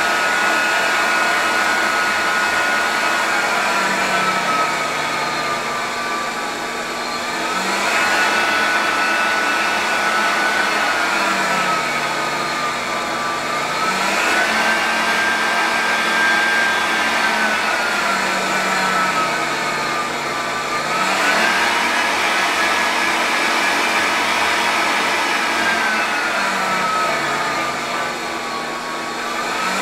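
Electric fan blowing air up a PVC tube, a steady rush of air with a motor whine. The whine jumps up in pitch four times, roughly every six to seven seconds, and slides slowly back down after each jump as the fan speed is varied.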